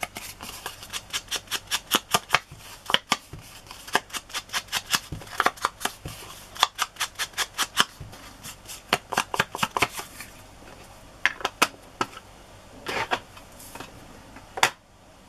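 A foam ink applicator dabbed quickly and repeatedly against an ink pad and the edges of a paper scrap, about four taps a second, stopping about ten seconds in. A few scattered taps follow, then one sharp knock near the end.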